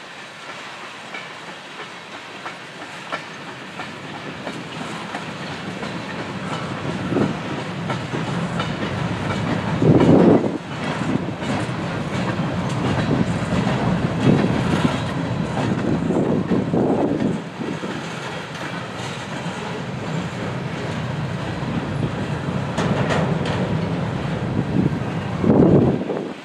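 Empty covered grain hopper cars rolling past on the rails, their wheels running over the track in a continuous clatter that builds slowly louder, with a few brief louder surges.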